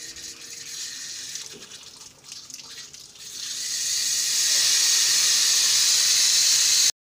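Water running from a wall tap into a concrete laundry sink. It grows louder from about three seconds in as the tap is turned up, then stops abruptly near the end.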